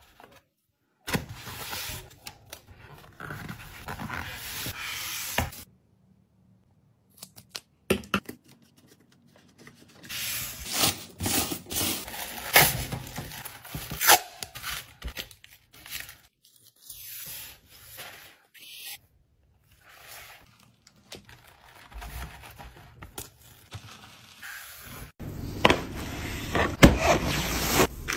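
Hand packing sounds: kraft honeycomb wrapping paper and cardboard crinkling and rustling under the fingers, with scrapes and sharp taps, in short stretches broken by brief pauses.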